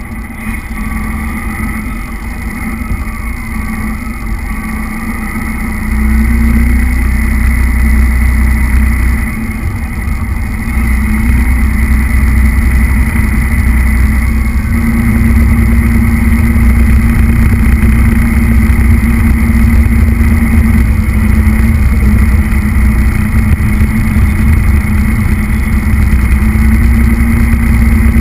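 Remote-control truck's motor and drivetrain running, heard from on board: a steady hum with a low rumble of its wheels on the tiled floor, louder from about six seconds in, with a short dip around nine to ten seconds.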